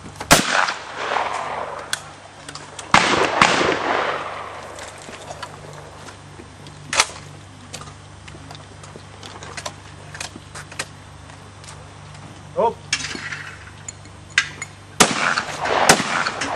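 Shotgun shots, each a sharp crack with an echoing tail: two in the first three seconds, a fainter one a few seconds later, and two about a second apart near the end.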